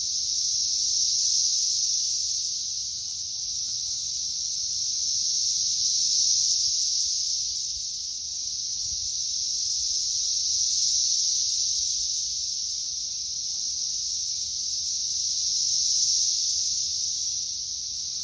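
Chorus of periodical cicadas: a steady high-pitched drone that swells and fades in slow waves about every five seconds.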